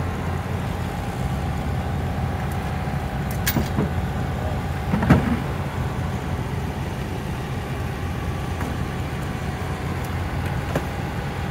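Steady low rumble of a running vehicle, with one sharp knock about five seconds in and a few faint clicks.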